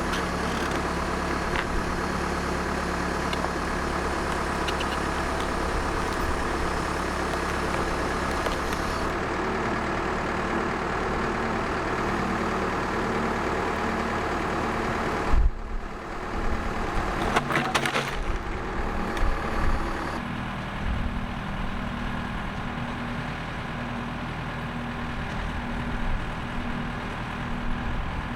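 Gasoline engine of a Woodland Mills HM130Max portable bandsaw mill running steadily. About halfway there is a sudden loud knock and a few seconds of clatter, after which the engine runs on more quietly.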